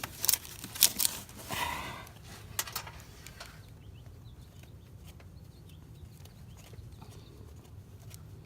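Handling noise as an oil filter is worked loose by hand in a car's engine bay: a quick run of clicks and knocks in the first few seconds, then only a low steady hum.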